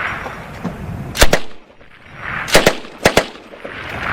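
M240B belt-fed 7.62 mm machine gun firing three short bursts of two or three rounds each, about a second in, two and a half seconds in and three seconds in, each followed by an echo.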